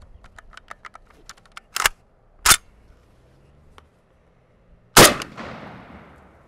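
Handling clicks and two sharp metallic clacks from a Walther K43 semi-automatic rifle, then about five seconds in a single 7.92mm Mauser rifle shot with a long echoing decay. It is the first round of a two-round disconnector test.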